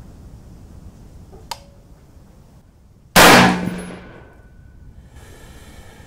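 A single shot from an AR-15 carbine fired on semi-automatic: one sharp, loud report with a fading tail of about a second. It is one round of a zeroing group. A faint click comes a second and a half before it.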